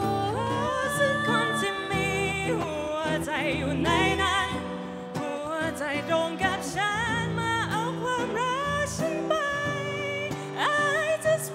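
Female vocals singing a slow song live, accompanied by strummed acoustic guitar.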